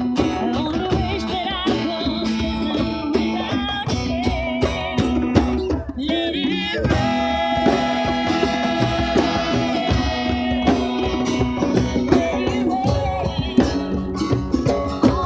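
A woman singing a slow, soulful song into a handheld microphone, with acoustic guitar strummed behind her.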